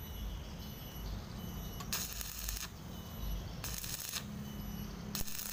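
Stick arc welding crackling in three short runs, about 2, 3.6 and 5.2 seconds in, as the electrode welds a new drain-plug nut onto a steel engine oil pan. A steady low hum sits underneath.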